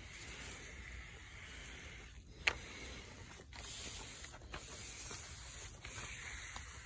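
Hand-pump garden pressure sprayer spraying a fine mist in several bursts with brief breaks between, and a sharp click about two and a half seconds in.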